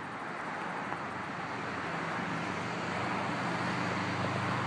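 Steady engine hum over a haze of outdoor noise, slowly growing louder through the second half.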